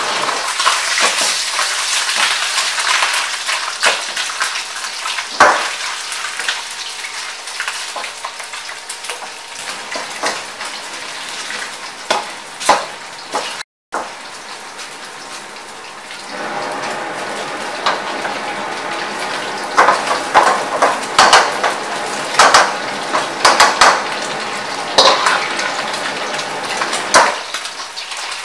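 Beef sizzling as it is stir-fried in a hot carbon-steel wok, with a steady frying hiss. A metal wok ladle scrapes and clanks against the wok throughout, the clanks coming thicker and louder in the second half.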